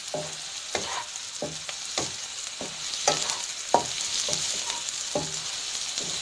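Sliced onions sizzling in oil in a non-stick frying pan while a slotted wooden spatula stirs them, each push and scrape of the spatula coming about twice a second over the steady sizzle.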